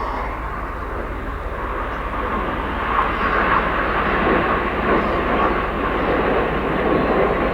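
Jet noise from the Red Arrows' BAE Hawk T1 jets passing in their display: a steady rushing sound that swells about three seconds in and stays loud.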